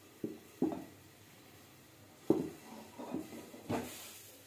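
A few scattered pops from the last popcorn kernels in a covered pan, muffled under a glass lid, about five spread over the seconds: the popping has nearly stopped and the batch is done.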